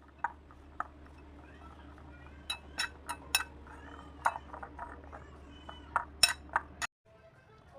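Kitchen utensils clinking against dishes: about a dozen sharp metal-on-crockery clinks, irregular, thickest in the second half, over a steady low hum.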